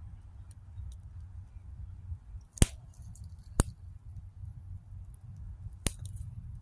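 Wood fire crackling, with three sharp pops, the first two a second apart and the third about two seconds later, and a few faint ticks before them, over a steady low rumble.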